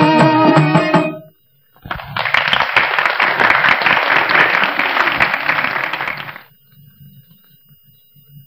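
The song's instrumental accompaniment ends on a held note about a second in. After a short silence, a crowd claps and applauds for about four and a half seconds, then fades out, leaving only a faint low hum of the old soundtrack.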